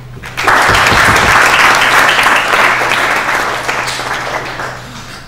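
Audience applauding, starting sharply about half a second in and tapering off near the end.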